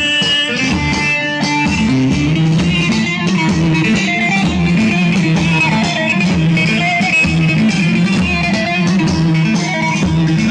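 Live band playing amplified halay dance music: a plucked-string lead over a steady beat.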